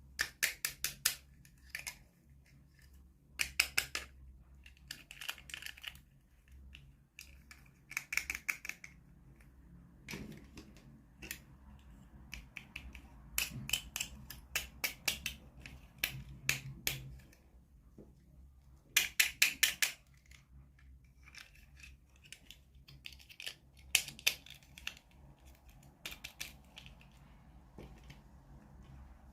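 Plastic packaging crinkling and clicking as a miniature toy is unboxed by hand: about seven short bursts of sharp crackles with quiet gaps between them.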